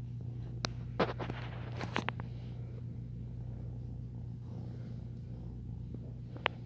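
Young kitten purring steadily with a low, even rumble while being stroked, with a few light clicks and rustles of handling about 1 and 2 seconds in and near the end.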